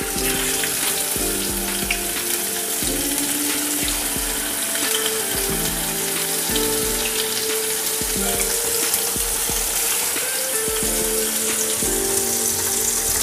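Masala-marinated sardines sizzling steadily as they shallow-fry in hot coconut oil, with more fish being added to the pan one by one. Soft background music plays underneath.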